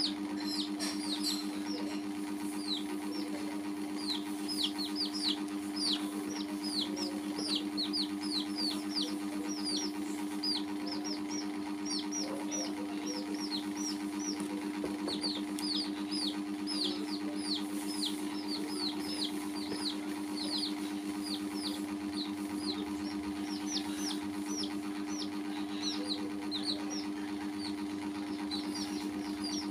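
Baby chicks peeping over and over, short high cheeps that each drop in pitch, several a second, over a steady low machine-like hum.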